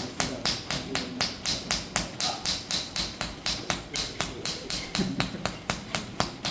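Rhythmic hand slapping on the bare skin of a person's upper chest just below the collarbone, at the Zhongfu acupoint. It is steady, at about four slaps a second. This is paida slap therapy, done to raise sha; the dark marks have begun to show.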